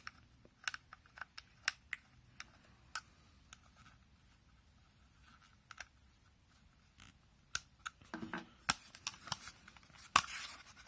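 Light clicks and scrapes of a 2.5-inch laptop hard drive being handled and fitted into an aluminium-and-plastic drive enclosure: scattered single clicks, a lull midway, then a busier run of handling near the end.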